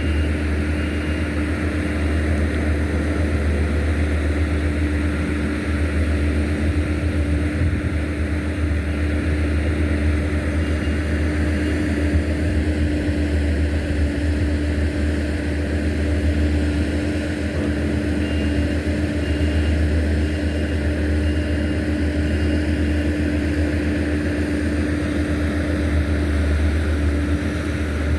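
A steady low mechanical drone with a constant hum, like an engine running, unchanging throughout.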